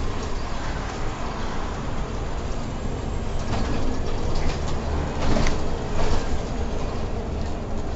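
Irisbus Crossway LE 12M bus on the move, heard from the driver's cab: a steady low engine and road rumble with scattered rattles and knocks, a little louder past the middle.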